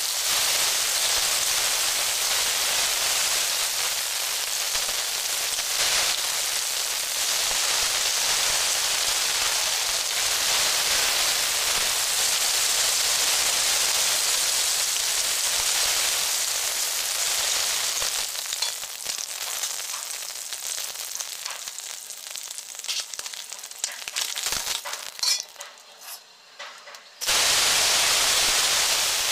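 Hilsa fish pieces frying in hot oil in a kadai: a steady, loud sizzle. The sizzle dies down over the last third, then a loud sizzle starts again suddenly near the end as sliced onions and green chillies fry in the oil.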